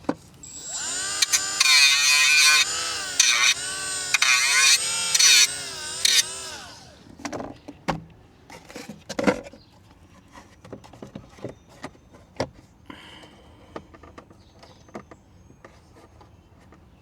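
Handheld die grinder cutting plastic trim in short spurts for about six seconds, its whine dipping and rising in pitch as it bites and frees up. After it stops come scattered clicks and knocks of the trim being handled.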